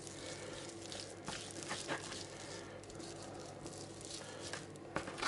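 Hands rubbing a salt, pepper and paprika mix into a slab of pork fat on a plastic cutting board: faint scratchy, crackly rubbing over a faint steady hum, with two sharper taps near the end.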